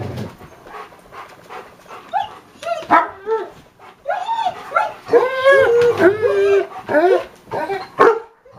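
Pet dogs playing, giving many short high-pitched calls that rise and fall, scattered at first and coming thick and fast in the second half.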